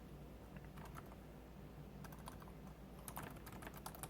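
Faint, irregular key clicks of someone typing on the LG Rolly Keyboard, a rollable Bluetooth keyboard. The strokes are sparse at first and come faster from about halfway through.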